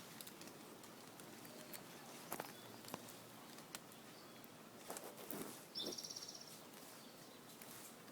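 Faint scattered clicks and knocks of wooden hive boxes and ventilation sticks being handled and spaced out, a cluster of them about five seconds in. A short high bird trill comes about six seconds in.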